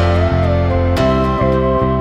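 Background music: gentle instrumental with guitar-like plucked notes over a steady bass, a new chord struck about once a second.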